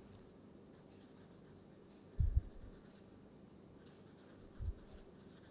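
Felt-tip marker writing on a sheet of paper: faint scratchy strokes. Two dull low thumps, a little after two seconds in and again about four and a half seconds in.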